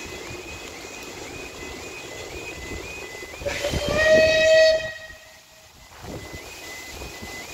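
A steam locomotive's whistle gives one steady blast of about a second, a little over three seconds in. Around it the level crossing's warning alarm warbles in a quick repeating rhythm, with train rumble underneath.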